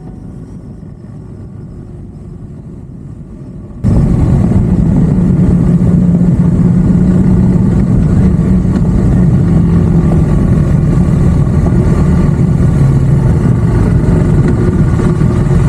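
Adventure motorcycle engine running steadily under way with rushing noise over it, cutting in abruptly and loud about four seconds in after a quieter low rumble.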